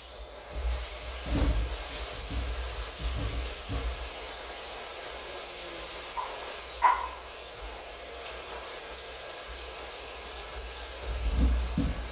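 Kitchen tap running steadily as red potatoes are rinsed under it, with a few dull knocks from handling them and a short clink about seven seconds in.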